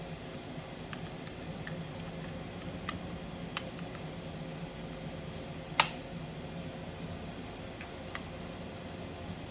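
A few short sharp clicks and taps from the parts of a small machinist's vise being handled and fitted back together while its lead screw is reinstalled, the loudest a little before six seconds in, over a steady low hum.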